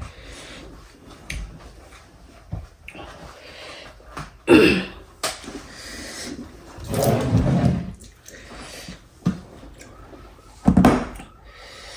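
A person eating soupy food: three louder slurping or mouth sounds, with a few short sharp clicks from eating in between.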